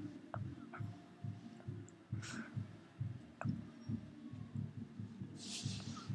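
Pekingese dog chewing a rawhide treat: a steady rhythm of low, soft chews, about two or three a second, with a few sharp clicks of teeth. Two brief hisses come through, around two seconds in and near the end.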